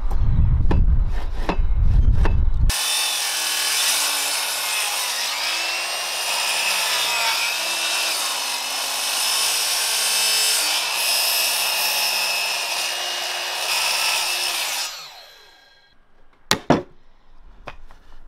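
Metabo KGS 18 LTX 216 cordless sliding mitre saw cutting through a wide timber board at a 45° bevel. The blade in the wood makes a steady high whine and rasp for about twelve seconds, then winds down and stops, and two sharp knocks follow. The first few seconds hold a low rumble with knocks before the cut begins.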